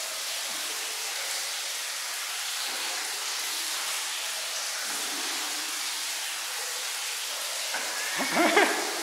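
Steady wet hiss of water and soap foam in a marble hammam, with a short voice-like sound near the end.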